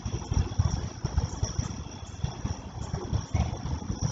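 Stormy wind gusting against the microphone: an irregular low rumble that swells and fades every fraction of a second, over a steady, faint high-pitched hum.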